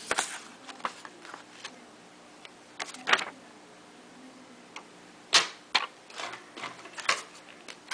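Hard plastic graded-card cases being handled and set down: scattered clicks and taps, a short scrape about three seconds in and a sharp click a little past five seconds.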